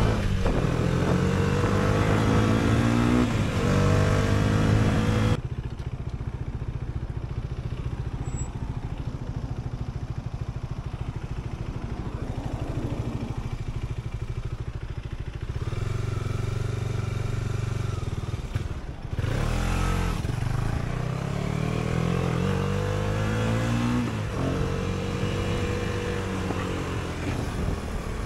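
Sport motorcycle engine accelerating through the gears: its pitch climbs and drops back at each shift, several times in a row. About five seconds in it falls suddenly to a quieter, steady drone, then builds again through more rising shifts in the second half.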